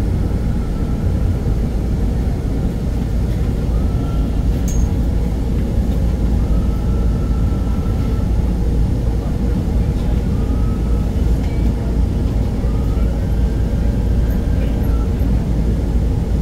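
Manila MRT Line 3 train running, a steady rumble with faint high whines that come and go.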